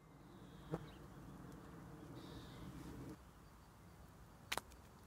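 Faint outdoor background noise, with a small click about a second in and a sharp click about four and a half seconds in.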